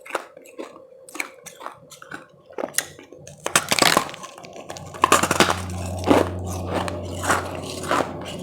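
Crunching and chewing of powdery frozen ice in the mouth: scattered sharp crunches at first, then a dense run of louder crunching from about three seconds in.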